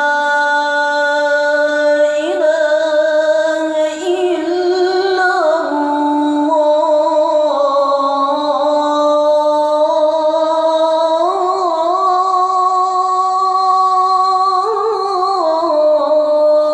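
A single voice chanting the adhan, the Islamic call to prayer, drawing out one long melismatic phrase with slow ornamental turns in pitch.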